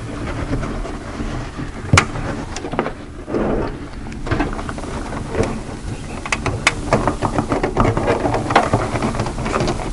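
Scraping and clicking as a corrugated metal downspout elbow is worked down into the fitting on a plastic rain barrel's lid, with one sharp click about two seconds in and a run of small clicks and knocks in the last few seconds.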